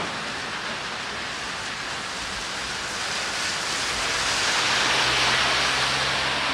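Steady rain hiss on a street. From about three seconds in, the noise swells as a vehicle passes on the wet road, and a low steady engine hum joins it about four seconds in.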